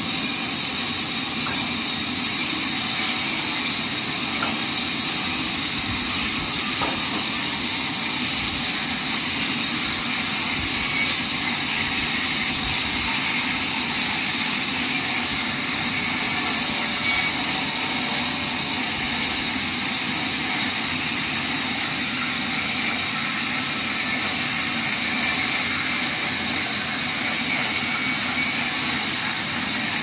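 Horizontal band sawmill running steadily, its band blade cutting lengthwise through a log with a continuous hiss.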